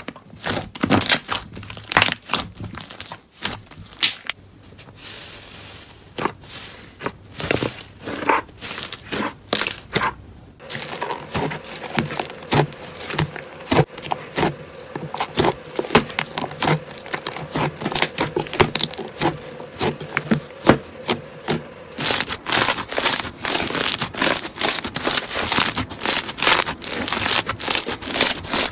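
Thick slime being kneaded and squeezed by hand in a bowl, giving rapid irregular sticky pops and clicks. Near the end the clicking grows denser as crunchy foam-bead slime is worked.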